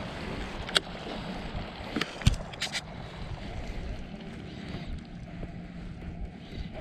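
Steady wind and water noise on a fishing kayak, broken by a few sharp clicks and one low knock in the first three seconds.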